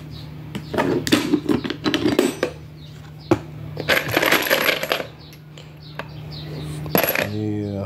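Loose brass handgun cartridges clinking and jingling against each other in an ammo can as a hand stirs them, in two spells of rapid clatter with a single sharp click between them.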